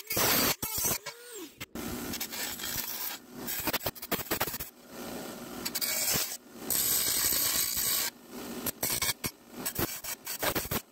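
A handheld rotary tool's cutoff wheel cuts through an aluminum channel, the motor's pitch dipping and recovering under load. Then a bench grinder's wheel grinds the cut aluminum in a series of short passes, the rasping noise starting and stopping.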